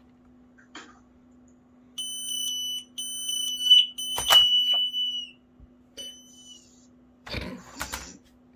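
Smoke alarm's piezo horn sounding a high, piercing test tone: a short beep, then a longer one that tails off downward, and a brief chirp a second later. A couple of sharp clicks and a rustle of handling accompany it.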